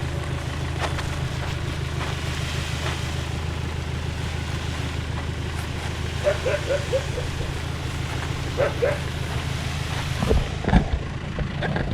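Farm tractor's diesel engine running steadily, with a few low knocks about ten seconds in.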